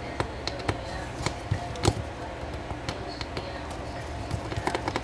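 Irregular small clicks and taps of a precision screwdriver and small tools working the screws out of an LG Stylo 4 phone's frame, the sharpest click a little under two seconds in, over a steady low hum.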